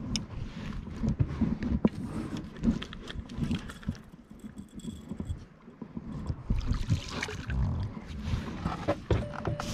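Small boat being rowed, with irregular knocks, scrapes and splashing of the oars and hull.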